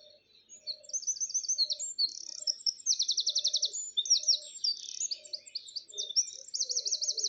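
Recorded birdsong played back through a small natural-sound speaker: quick high chirps and fast rapid-fire trills, louder from about a second in.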